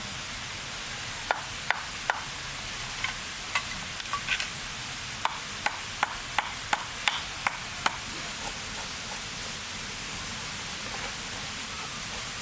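About a dozen sharp clicks and knocks of cooking utensils, irregular and mostly in the first two-thirds, over a steady hiss.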